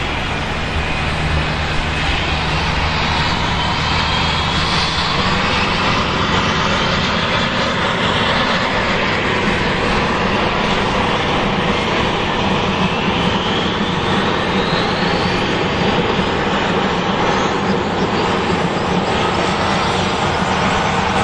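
Bell 212 helicopter's twin Pratt & Whitney Canada PT6T turboshaft engines and rotor running on the ground during start-up: a steady noise with turbine whines rising slowly in pitch as the engines spool up.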